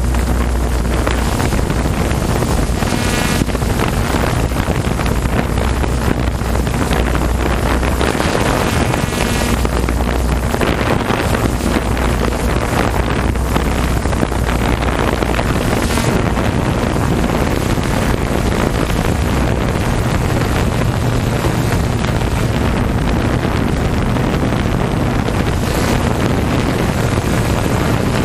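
Open-class jet ski engines running at a steady drone, their pitch shifting now and then, under heavy wind noise on the microphone.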